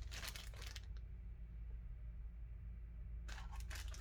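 Handling noise of an unboxing: a short rustle of packaging in the first second and another near the end, over a low steady hum.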